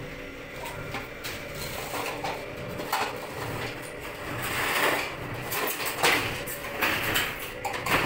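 Hands rummaging through a metal toolbox, with tools and loose screws clattering and knocking, busier from about halfway in.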